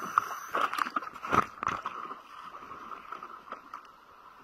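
Irregular knocks and clicks, the loudest about a second and a half in, over a faint steady hum; they die away in the second half.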